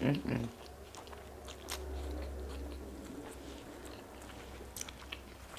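Close-miked eating: biting and chewing food, with scattered faint crunchy clicks. A short hummed voice sound comes right at the start.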